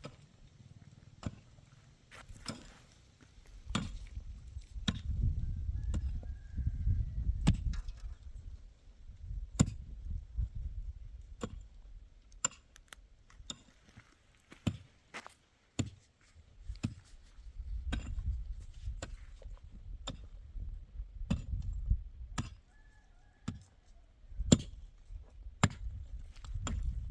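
Irregular sharp knocks and chops of hand work with a tool, struck one at a time with uneven gaps, with low rumbling between the strikes.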